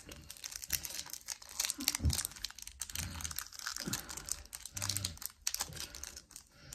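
Foil wrapper of a Pokémon card booster pack crinkling and tearing as it is handled and ripped open: a busy run of quick crackling clicks, with a few short low hums in between.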